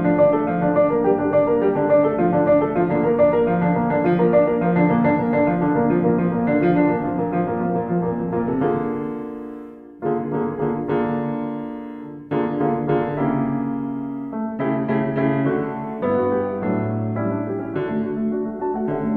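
Background piano music: sustained notes and chords, dying away around nine seconds in before new chords come in.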